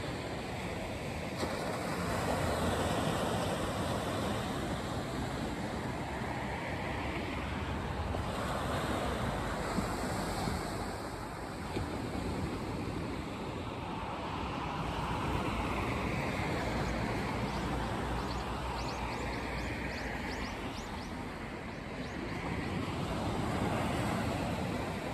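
Small waves washing onto a sandy beach, the surf swelling and easing every few seconds, with wind rumbling on the microphone.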